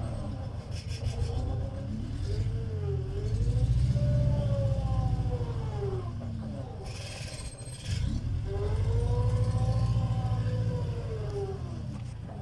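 Compact track loader's engine working hard with a loaded bucket, its pitch rising and falling back twice, with a short hiss just after halfway.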